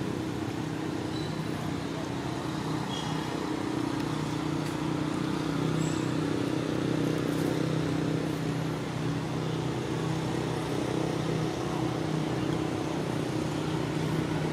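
Steady low engine hum with a faint background haze. A few faint, short high chirps stand over it around a third of the way in.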